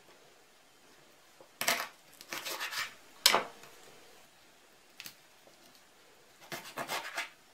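Knife cutting through raw chicken wing joints against a wooden cutting board: a series of sharp knocks and short runs of tapping, the loudest knock about three seconds in.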